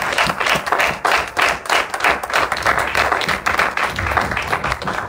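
Congregation applauding, many hands clapping together.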